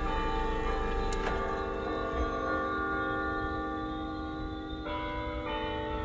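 Church bells ringing in a stone church tower: several bells struck in turn, their tones ringing on and overlapping. Fresh strikes come about a second in and twice near the end.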